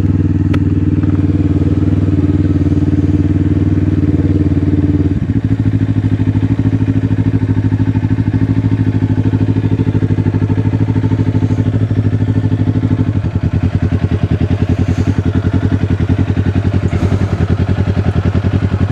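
Kawasaki Ninja 500 parallel-twin engine running steadily while riding. Its note changes abruptly about five seconds in and again about thirteen seconds in.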